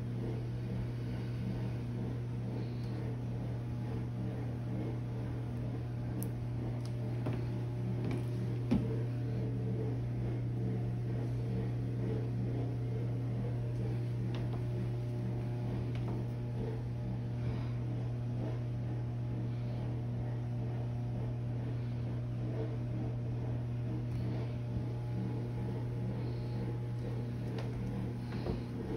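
Steady low hum from a running appliance or motor, with a few faint clicks and taps.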